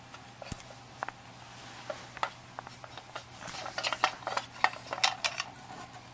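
Handling noise from a DeJur 750 film projector's metal casing being turned around by hand: scattered clicks, knocks and light scrapes, busiest around the middle.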